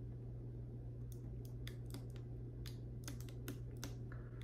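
Light, irregular clicks and taps as fingers fit a tiny clip-on accessory to the helmet of a 12-inch collectible action figure, over a steady low hum.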